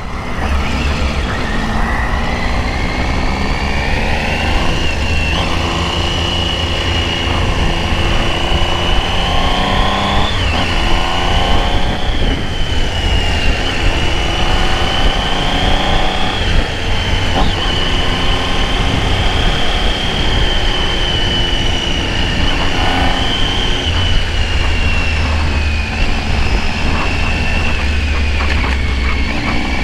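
Triumph Tiger 800's three-cylinder engine running at road speed under heavy wind rush on the rider's camera, with the engine note climbing in revs a couple of times under acceleration. A steady high whistle wavers in pitch over it.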